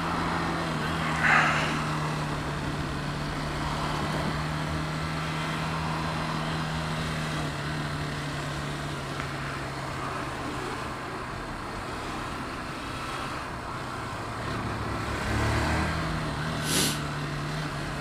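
Motorcycle engine running steadily at low revs, heard through a helmet camera with wind and road noise, as the bike filters slowly between queued cars. There is a short hiss about a second in and another near the end.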